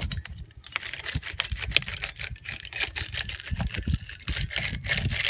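Battery terminal cleaner's wire brush twisted back and forth inside a battery cable clamp: a rapid, irregular scraping and clicking of bristles on the metal as the contact surface is scrubbed clean.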